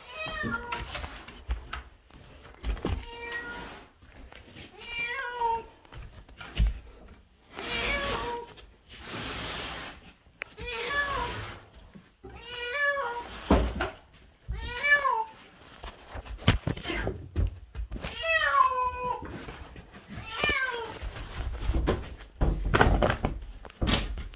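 A domestic cat meowing over and over, about once every two seconds, each call a short rise and fall in pitch. Rustling and low bumps come in between.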